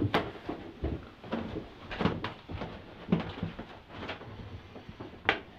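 A series of irregular soft knocks and clicks, about a dozen, with a sharper click near the end.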